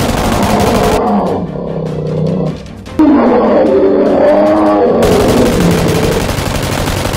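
Two long, loud beast roars, each falling in pitch, the second starting about three seconds in and louder, followed by a rough rasping tail.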